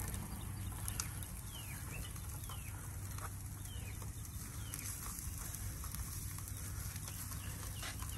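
Birds chirping in short, falling notes over a low steady hum, with a few light clicks as raw boudin links are set down on the grill's cast-iron grate.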